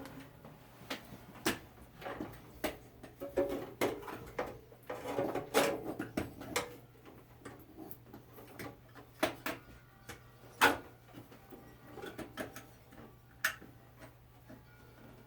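Irregular clicks, clinks and knocks of hand tools and metal parts being handled while a starter is swapped on a small opposed-twin mower engine, with one louder knock about two-thirds of the way in. A steady low hum runs underneath.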